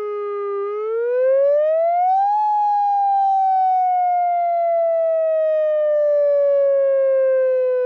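UltraVoice electronic siren sounding a wail: a single tone that climbs steeply for about two seconds, then slowly slides back down.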